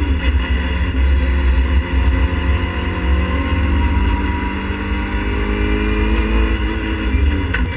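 Racing car's engine heard from inside the cockpit, running hard at high revs in fourth gear. Its pitch sags slightly mid-way and climbs again, then drops near the end with a sharp click.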